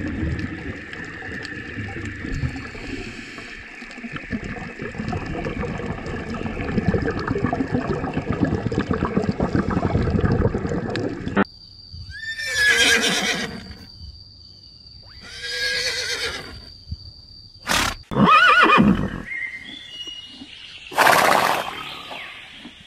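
A steady rushing noise that cuts off abruptly about halfway through, followed by horses whinnying: four loud, wavering neighs a few seconds apart, the third one short.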